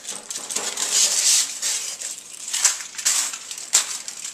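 Aluminium foil crinkling and crunching as a foil-wrapped rolling pin is rolled back and forth over more foil, in repeated strokes.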